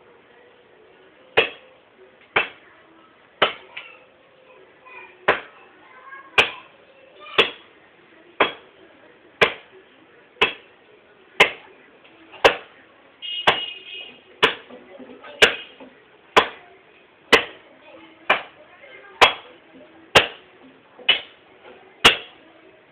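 Wood being chopped by hand: steady blows of a blade biting into wood, about one a second, starting about a second and a half in.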